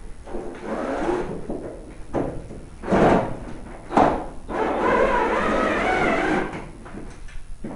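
Cordless drill with a Phillips bit backing screws partway out of a tanning bed canopy's plastic end cap, running in several short bursts of whirring, the longest near the end, with a sharp click about four seconds in.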